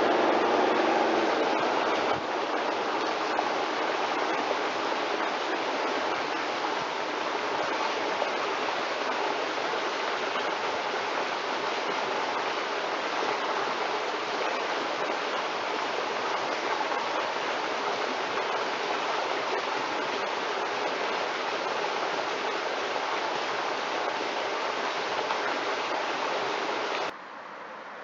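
Pontiac Trans Am V8 fading away as the car drives off. It gives way after about two seconds to a steady rushing noise that runs on until it drops off sharply near the end.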